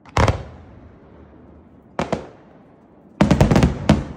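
Fireworks display: aerial shells bursting with sharp bangs, one just after the start and another about two seconds in, then a quick run of bangs and crackles near the end.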